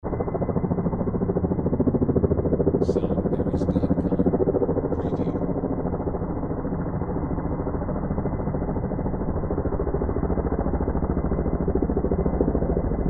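Helicopter heard at a distance: a steady rotor chop over engine drone, the blade beats making a fast, even pulsing that swells slightly in the first few seconds.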